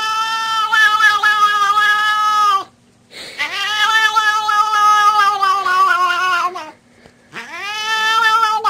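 A cat yowling in long, drawn-out calls: one ending about two and a half seconds in, a second of about three seconds, and a third starting near the end. Each holds a steady pitch and drops off at its close.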